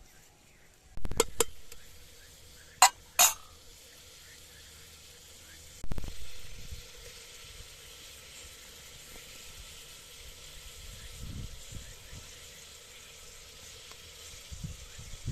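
Food sizzling in a frying pan over a fire, a steady hiss that fills in after about six seconds. Early on there are a few sharp metal clinks, two pairs about a second and three seconds in, and a low thump near six seconds.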